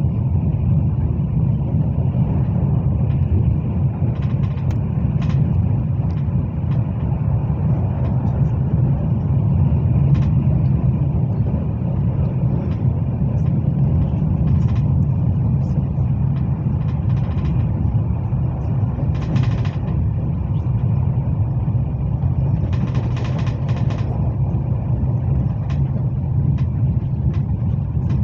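Cabin noise inside a Hyundai Rotem HRCS2 electric train running at speed: a loud, steady low rumble from the running gear on the track, with a faint steady high tone above it. A few brief rustles or rattles cut in now and then.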